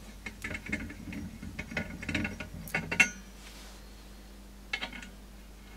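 BSA Superten air rifle's body bottle (its air cylinder) being unscrewed by hand from a diver's tank fill adapter after filling: a quick run of small metallic clicks and rattles for about three seconds, then a couple of light clicks near the end.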